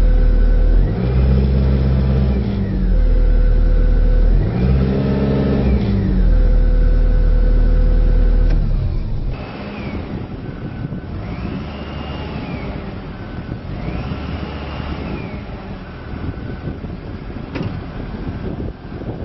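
Bobcat S770 skid steer's diesel engine running and revving up and down several times. About nine seconds in it drops to a quieter level, with a higher whine rising and falling a few more times.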